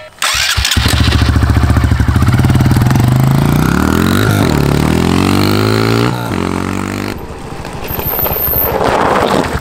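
Small dirt bike's engine catching within the first second, then running as the bike rides off, its pitch rising and falling with the throttle. It grows quieter for a few seconds, then louder again near the end as the bike comes back.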